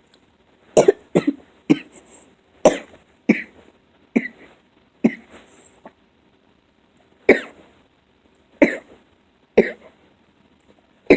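A person coughing hard in a long fit, about eleven sharp coughs, several close together in the first few seconds and then spaced further apart: choking on a piece of almond.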